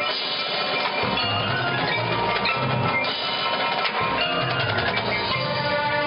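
College marching band playing a field show, with drums and mallet percussion prominent over the winds; a run of quick percussion strokes comes near the end.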